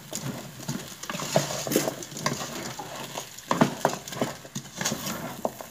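Wooden spoon stirring rice, sausage and vegetables in a pot, scraping and knocking against the pan at irregular moments, over a faint sizzle of the mixture frying in oil.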